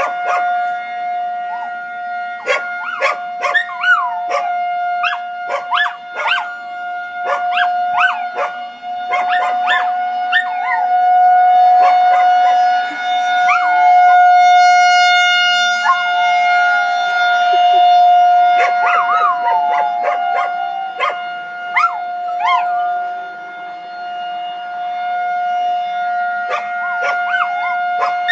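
Outdoor tornado warning siren holding one steady wailing tone, with dogs howling and barking along to it. Short yips and barks come in clusters, and in the middle there are long howls that slowly fall in pitch.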